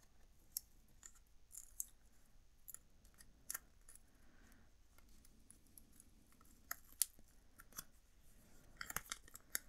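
Faint, scattered crinkles and small clicks of a paper sticker sheet being handled as stickers are picked off it, with a quick run of them near the end.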